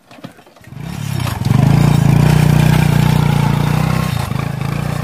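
Small motorcycle engine running as the bike pulls away. It comes up about a second in and eases off near the end as the bike rides away.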